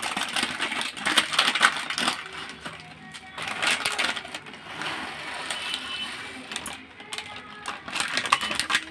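A plastic snack packet crinkling and rustling with dense crackly clicks as it is handled and opened, then fried boondi (gram-flour pearls) poured from it into a bowl of curd near the end.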